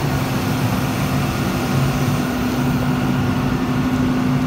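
Construction machinery's diesel engine running steadily: a constant low hum with a steady drone.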